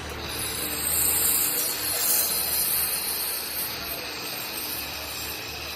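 Handheld fiber laser welder working on steel plate: a steady hiss of shielding gas and spatter, a little louder for a second or so early on, with a low hum underneath.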